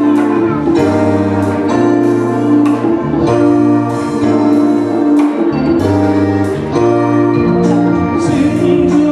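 A live band playing, with a keyboard holding chords that change about once a second over hand drums and a steady beat. An electric guitar may also be in the mix.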